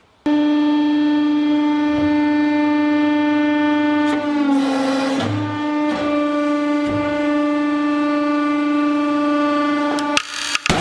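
Hydraulic press running with a steady, loud whine while its ram comes down onto a stack of clear plastic sheets; the pitch sags slightly for a moment about halfway through. Near the end the whine stops and a few sharp cracks sound as the plastic gives way.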